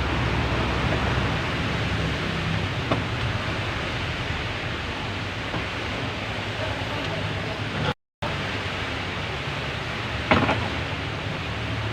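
Steady hiss-like background noise with a low hum underneath, broken by a light click about three seconds in and a sharper click or tap about ten seconds in.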